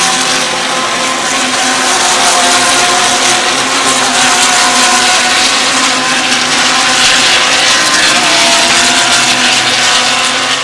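GT3 race car engines running at high revs, a loud, continuous engine note of several tones with small dips in pitch.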